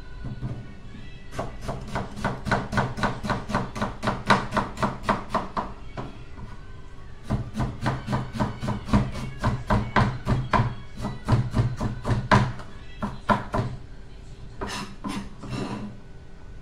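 Rapid, even strokes of a kitchen utensil working food, about four or five a second, in two long runs with a short pause between and a few more strokes near the end.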